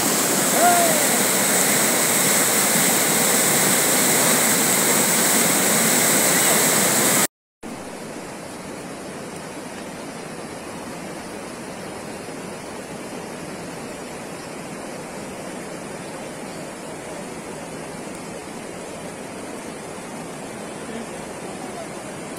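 Floodwater rushing in a swollen, muddy creek: a steady, even roar. About seven seconds in it cuts off for a moment, then carries on quieter and duller.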